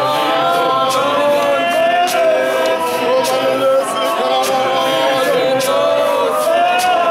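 Group of voices singing a hymn in harmony, with a regular sharp beat about twice a second.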